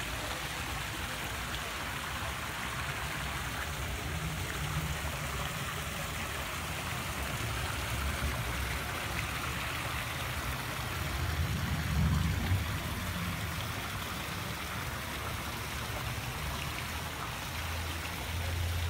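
Garden fountain splashing steadily into its pool, with a low rumble that swells briefly past the middle.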